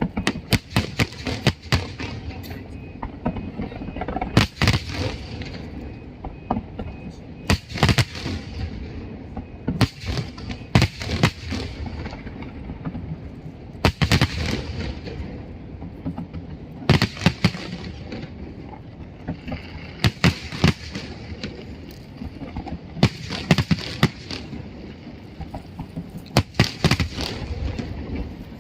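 Fireworks display with aerial shells bursting over and over, often several sharp bangs in quick succession, over a steady background noise.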